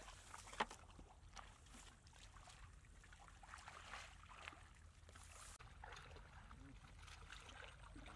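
Faint sloshing and squelching of shallow muddy water and wet mud as people wade and dig by hand, with one sharp tap or splash about half a second in.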